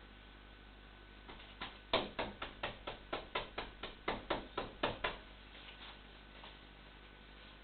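Someone knocking on a door: two light knocks, then a fast, insistent run of about fifteen knocks at about five a second that stops abruptly.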